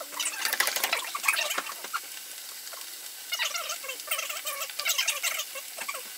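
Potato strips frying in deep-fryer oil at about 325°F, the oil bubbling and crackling hard as water boils out of the still-wet potatoes during the first fry. The crackling comes in two busier bouts with a steady hiss between.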